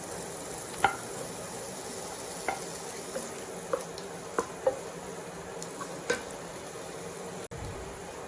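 Chopped potato being stirred into onion, ginger, garlic and green chillies frying in coconut oil: a steady sizzle, with the spatula knocking against the pan every second or so.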